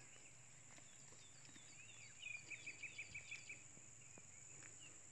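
A bird calls in a quick run of about eight short chirps around the middle, with a few higher, scattered chirps. Beneath it is a faint, steady high drone; otherwise it is near silence.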